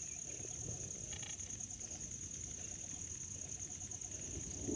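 Steady high-pitched insect drone, with low rustling and handling noise underneath and a brief chirping call about a second in.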